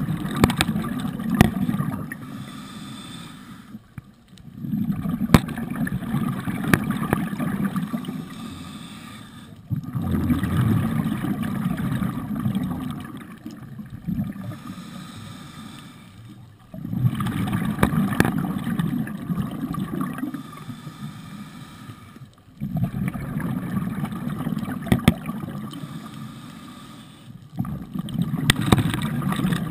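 Scuba diver breathing through a regulator underwater: a burst of exhaled bubbles about every six seconds, each starting suddenly and fading out, with a short hush between breaths. Scattered sharp clicks run through it.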